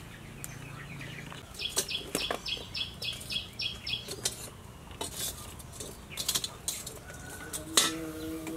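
Metal tongs clinking against charcoal and a clay charcoal stove in scattered, irregular clicks, then a wire grill rack set down on the stove with a sharp clatter near the end. A bird chirps in a quick, evenly spaced series of about seven notes from about two seconds in.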